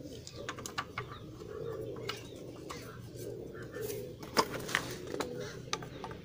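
Low, soft pigeon cooing mixed with scattered sharp clicks and taps from parts and pliers being handled. The clicks are loudest a little past the middle.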